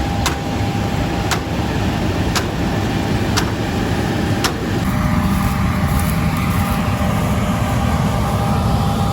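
Vehicle engine and road noise heard from inside the cab while driving, with light ticks about once a second that stop about four and a half seconds in.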